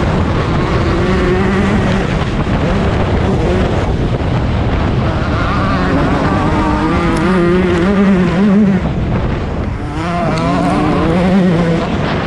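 2021 Yamaha YZ125 single-cylinder two-stroke motocross engine revving hard under racing throttle, its pitch rising and falling as it runs through the gears. The throttle closes briefly about ten seconds in, then the engine revs up again.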